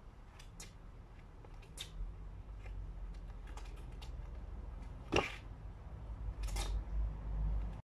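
Trainer soles slapping and scuffing on patio paving slabs during fencing footwork and lunges: a few sharp footfalls, the loudest just after five seconds in, over a low rumble.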